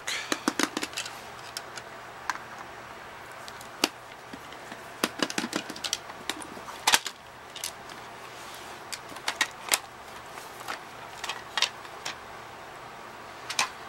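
Scattered clicks and knocks of hard plastic as the grey plastic housing of a Respironics M Series sleep apnea machine is handled and its halves are pulled apart, with a few louder snaps among them.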